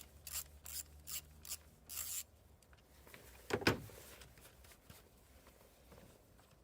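Socket ratchet on an extension bar worked in short strokes, its pawl rasping about two to three times a second for two seconds. A single loud knock follows about a second and a half later.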